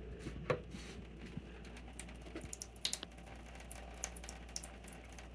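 Low-pressure water running from a tap fed by a small pump off a rain-catch system, pattering and splashing, with a few sharp clicks.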